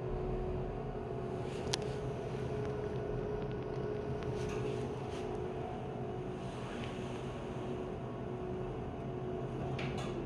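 Steady machine hum with a few constant tones, like a fan or appliance running, with a sharp click about two seconds in and another near the end.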